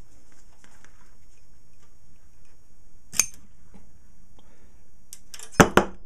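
Metal clacks of a homemade U-core electromagnet, energised at 30 volts, against a heavy steel block: one sharp click about three seconds in and two loud clacks close together near the end.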